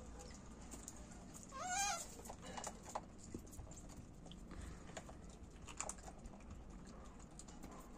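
A rhesus macaque gives one short, wavering squeal about two seconds in. Faint scattered clicks come before and after it.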